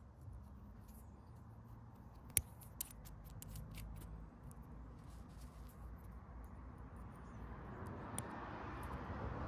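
Small metal clicks and light scraping as the knurled knob and parts of a motorcycle fuel tap are handled and fitted by hand, with one sharp click about two and a half seconds in. Low rubbing handling noise grows louder near the end.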